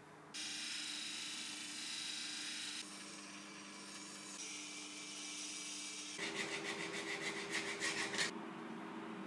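Belt sander running with a steady hiss as a wooden spatula is sanded on it, then quick back-and-forth hand-sanding strokes, about six a second, for two seconds in the last third.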